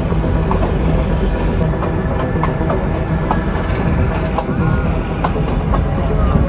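Narrow-gauge Nilgiri Mountain Railway train running: a steady low rumble of the moving carriage, with scattered clicks and a few short squeaks from the wheels and running gear.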